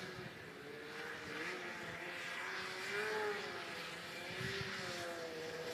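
Faint Polaris snowmobile engine running, its pitch rising and falling with the throttle.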